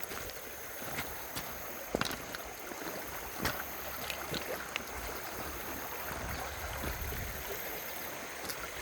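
Creek water running steadily, with scattered sharp knocks and clicks, the loudest about two and three and a half seconds in.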